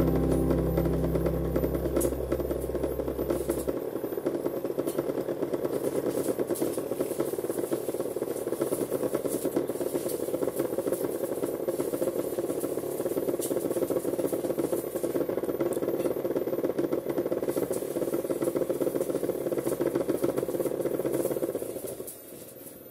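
Small DC motor spinning the head of a homemade mini cotton candy machine, running with a steady buzzing rattle that stops near the end. Background music fades out in the first few seconds.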